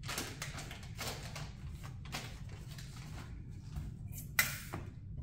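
Handling noise as parts and a black plastic motorcycle airbox are moved about on a steel workbench: short rustles and light knocks, with one sharp click about four seconds in.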